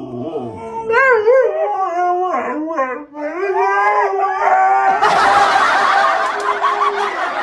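A dog howling in long, wavering notes that settle into one held tone. A steady hiss joins about five seconds in.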